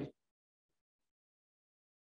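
Near silence: a man's voice stops just after the start, then nothing is heard.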